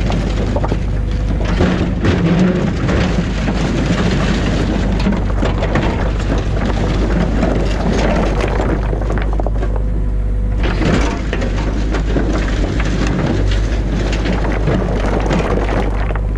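Excavator engine running steadily while stones and rubble clatter and knock against each other and the bucket.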